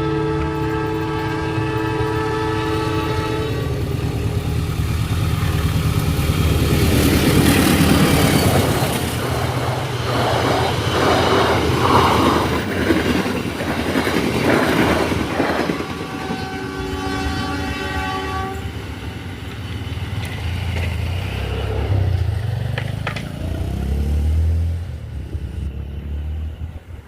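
Locomotive horn of the Serayu passenger train sounding a long blast, a warning for an unguarded level crossing, then the train passing close by with loud rolling wheel noise and rail clatter. The horn sounds again about 16 seconds in, and the rumble drops away near the end.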